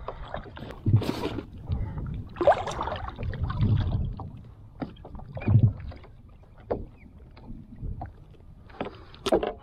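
Irregular knocks, clunks and rustles of handling on a paddleboard deck: a cooler lid opening, then pliers working a lure's hook out of a black drum's mouth.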